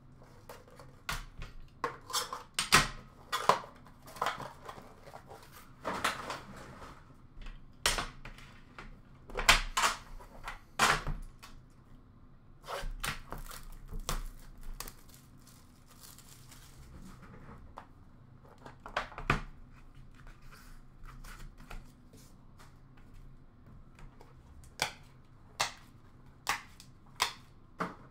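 Trading-card packaging being handled and opened by hand: irregular tearing and crinkling of wrap, with sharp clicks and knocks as card cases and boxes are moved and set down on the counter.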